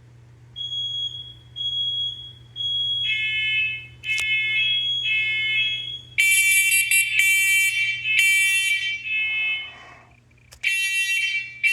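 Hardwired, interconnected smoke alarms going off in a push-button test, led by a First Alert SMCO100V-AC smoke and CO alarm. It starts with three shrill single-tone beeps about a second apart. Other alarms of different pitch join about three and six seconds in, building a loud, layered beeping that drops out briefly near the end.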